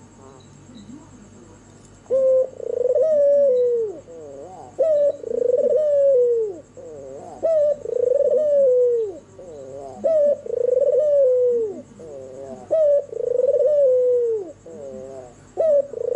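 White (albino) ringneck dove cooing over and over, starting about two seconds in: each call is a short note followed by a long coo that falls away at the end, repeated about every two and a half seconds, six times.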